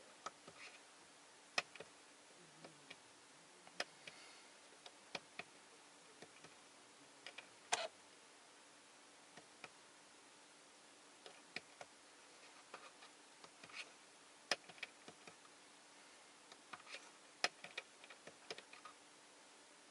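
Faint, irregular clicks of a Toyota Innova Crysta's display control buttons being pressed to scroll through the multi-information display menus, some in quick pairs, with the loudest a little before the middle. A faint steady hum runs underneath.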